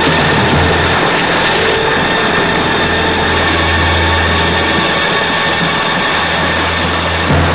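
Train running: a loud, steady mechanical rumble and clatter over a continuous low hum.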